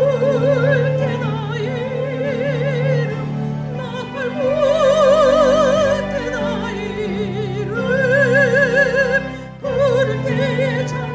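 A classically trained soprano sings a Korean hymn in operatic style with wide vibrato, over a backing accompaniment. She sings a run of long held notes; the highest and loudest comes about halfway through, and she takes a short breath break near the end.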